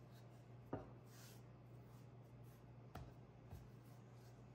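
Wooden rolling pin rolling out shortcake dough on a granite countertop: faint rubbing, with a sharp knock under a second in and a softer knock or two about three seconds in, over a steady low hum.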